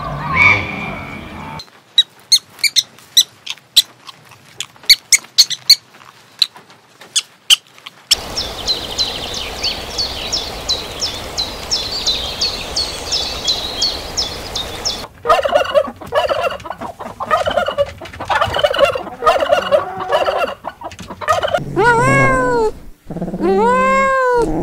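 A string of short animal-sound clips. First come sparse sharp clicks, then rapid high chirps over a steady hiss, then a bird calling. Near the end a kitten meows several times, each meow rising and falling.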